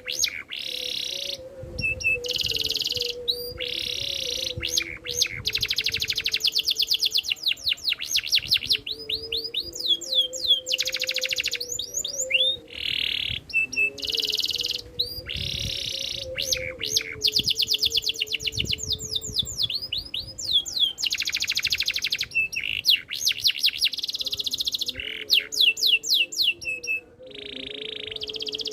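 Domestic canary singing: phrases of rapid trills, many fast repeated notes, alternating with held whistled notes, broken by short pauses.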